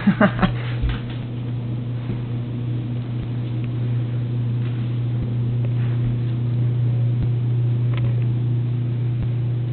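A steady low mechanical hum with a few faint clicks and taps; a brief voice sound right at the start.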